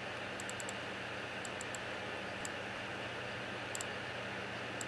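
Steady hiss with a low hum underneath, broken by short runs of faint quick ticks from a computer mouse's scroll wheel as the Finder window scrolls: groups of one to four ticks about once a second.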